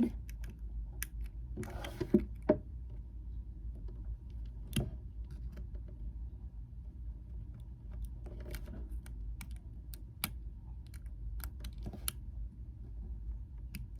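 Scattered small, irregular clicks and taps of hard plastic: a GAN 11M Pro speed cube piece being handled while its magnet-adjustment dial is turned with a small screwdriver.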